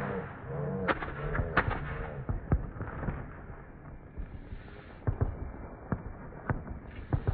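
Fireworks going off: sharp bangs at irregular intervals, several close together in the second half, with a wavering pitched sound in the first couple of seconds.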